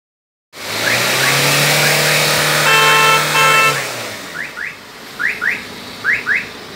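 Ford Fiesta engine held at high revs with a loud, steady rush from the tailpipe, dropping back toward idle about four seconds in. Two short steady tones sound near the middle, and later repeated pairs of short rising chirps come about once a second.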